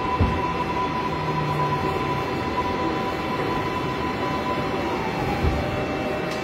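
Inside a New York City subway car pulling into a station: a steady rumble and hum with a high whine that sags slightly about five seconds in, and a couple of low thumps.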